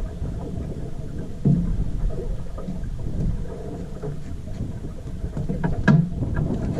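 Wind rumbling on the microphone, with a dull thump about a second and a half in and a sharp knock near the end.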